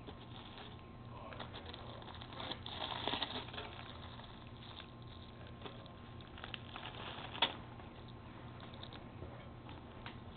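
Crinkling and rustling of a clear plastic wrapper and shredded plastic basket grass as a toddler handles them and rummages in a small tin pail, with a louder stretch of crackling about three seconds in and a single sharp click about seven seconds in.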